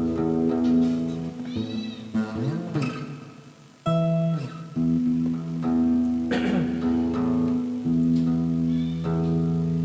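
Acoustic-electric guitar chords strummed and left to ring, picked up by a BM800 condenser mic through a V8 sound card. The sound fades away a little before four seconds in, then a fresh chord rings out and the playing carries on.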